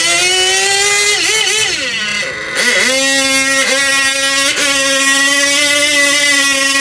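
A micro mini pulling tractor's small electric motor whining at high speed as it pulls the sled down the table track. The pitch wavers early, sags and briefly drops out about two seconds in, then holds steady at a lower pitch with two short dips.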